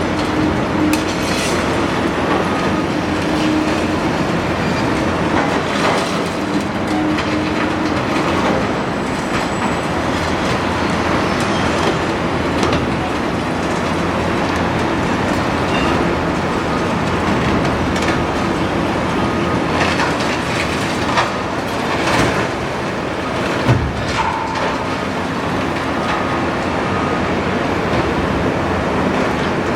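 Large Doosan demolition excavator working: its diesel engine runs steadily under load, with repeated knocks and clanks of the machine and the breaking structure, several of them in the second half.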